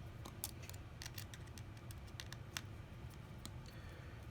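Light, irregular clicks and ticks of small repair tools handling the parts of an opened iPhone SE, over a low steady hum.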